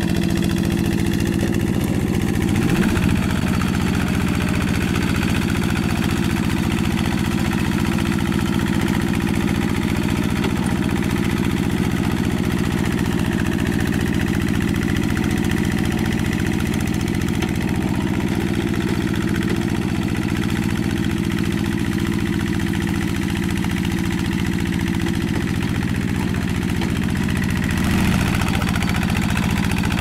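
Single-cylinder Kubota diesel engine of a two-wheel hand tractor running steadily under load while it drags a rake through wet paddy soil, with a short rise in level about three seconds in and again near the end.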